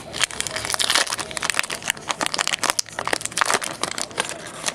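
Foil Pokémon booster pack wrapper crinkling and tearing as it is handled and opened: a dense, irregular run of sharp crackles and rustles.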